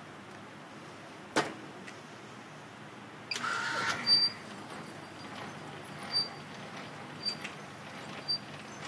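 Teknek CM4 750 contact cleaning machine running with a low steady hum. There is a sharp click about a second and a half in, a short whirring burst near the middle, and short high ticks every second or two after it.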